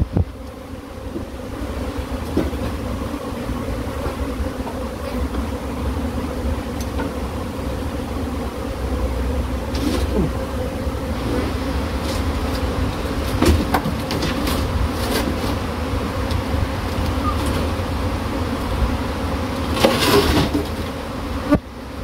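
A mass of Cape honeybees buzzing around an open hive box in a steady hum. A few short knocks and rustles come through, about halfway and again near the end.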